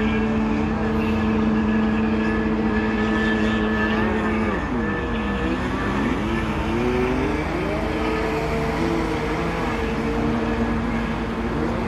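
Stand-up jet ski's engine running at a steady high pitch, then dropping and climbing several times in quick throttle changes around halfway through before settling steady again.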